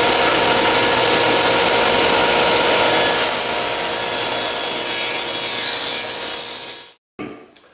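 Table saw running alongside a dust collector. From about three seconds in, its blade rips a 2x4 lengthwise, trimming off the rounded edge with a loud, hissing cut. The sound cuts off abruptly near the end.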